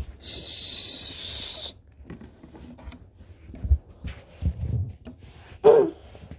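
A loud steady hiss lasting about a second and a half, then a few dull thumps and knocks, and a short high vocal sound near the end.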